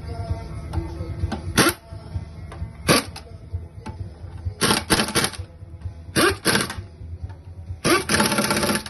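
Repeated short bursts of mechanical clatter, about six, the last lasting nearly a second, over a steady low hum.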